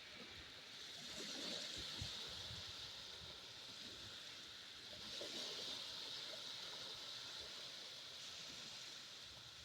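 Small sea waves washing up on a sandy beach, the hiss swelling twice, about a second in and again about five seconds in.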